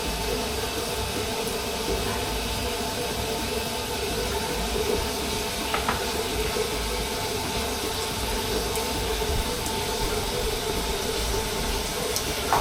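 Faucet water running steadily into a sink and down a newly fitted pop-up drain, a constant hiss, with the faucet's aerator screen off.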